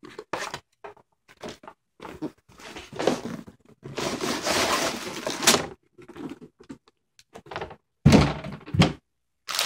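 Plastic bags of Lego bricks being tipped out of their cardboard box onto a wooden table: scattered knocks and plastic rustling, then a heavy thunk about eight seconds in as the bags drop onto the table.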